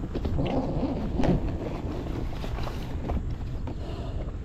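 Wind rumbling on the microphone over water, with short splashes beside an inflatable boat as a hooked barramundi thrashes at the surface.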